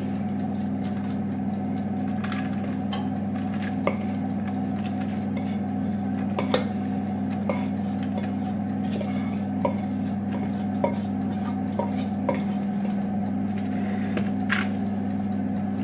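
Wooden spoon scraping and knocking against a stainless steel pot as a sticky oat-flake mixture is spooned out, giving scattered clicks and knocks. A steady low hum runs underneath.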